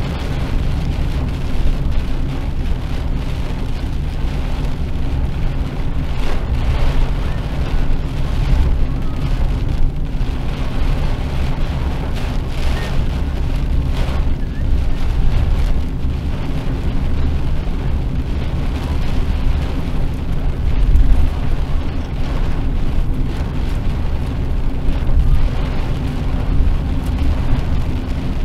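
Car driving in heavy rain, heard from inside the cabin: a steady engine and wet-tyre drone on the road, with rain hitting the windshield.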